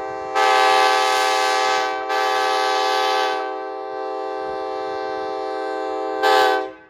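Multi-chime locomotive air horn sounding a chord of several steady notes in repeated blasts: two long loud blasts with a short break between them, a softer sustained stretch, then a final short loud blast that cuts off near the end.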